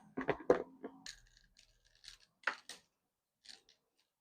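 Handling clicks from an Umarex Strike Force CO2 airgun being readied to fire: a quick run of three sharp clicks at the start, then a few scattered single clicks. No shots.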